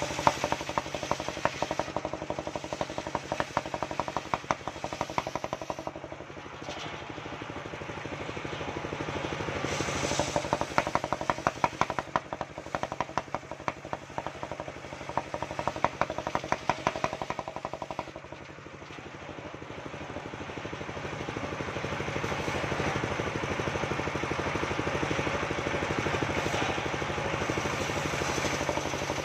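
Engine-driven mobile circular sawmill running while a waru log is ripped into boards on its large blade. The engine beats rapidly and unevenly, loudest in two long stretches with a quieter lull after each, then settles into a steadier noise near the end.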